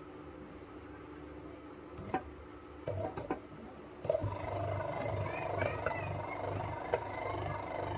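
Air-cooler electric motor running with a steady hum, under test after repair; a few sharp clicks come a little past halfway, and about four seconds in the running gets louder with a pulsing low hum.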